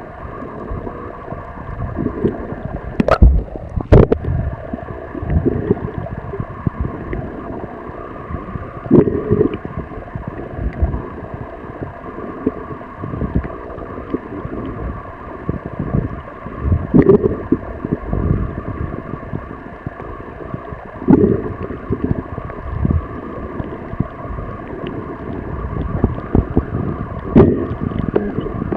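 Muffled underwater noise picked up by a camera held underwater while snorkeling: a steady water hiss with low surges every few seconds and two sharp clicks a few seconds in.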